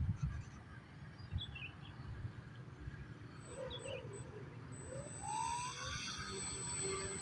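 Wind buffets the microphone with a few short bird chirps. About five seconds in, the RC plane's motor starts a rising whine that keeps building.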